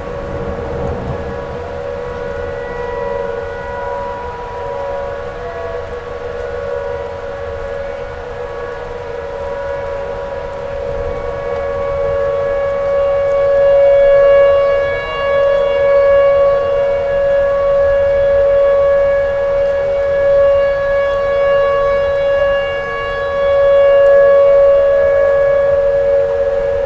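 Outdoor tornado warning siren sounding a steady wail held on one pitch, swelling louder about halfway through and again near the end, with a fainter tone sliding down in pitch beneath it twice.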